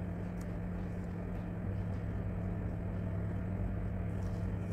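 A steady low machine hum, with a few faint taps of a spatula stirring in the pan.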